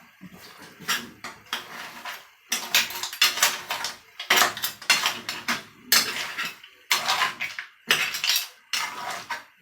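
Cookware and utensils clattering in repeated strokes, a burst roughly every second, as food is worked in a pot or bowl.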